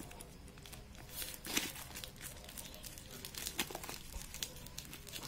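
Plastic packaging crinkling and rustling faintly as a black plastic mailer bag around a bubble-wrapped box is cut open with scissors, in scattered short crackles.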